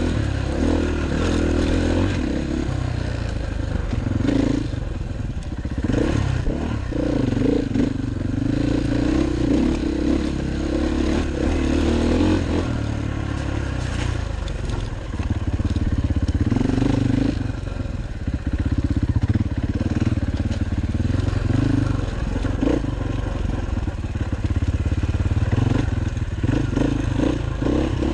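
KTM 500 EXC enduro dirt bike's single-cylinder four-stroke engine, heard from the rider's helmet camera, revving up and backing off again and again as it picks its way along a rough trail. Knocks and rattles from the bike over the ground come through now and then.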